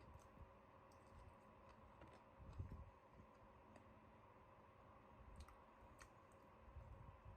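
Near silence: a faint steady hum with scattered faint clicks, and soft low thumps about two and a half seconds in and near the end.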